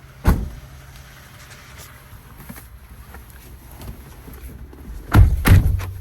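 Heavy low thumps in a 2012 Toyota Sienna minivan: one just after the start and two close together near the end, over a steady low cabin hum.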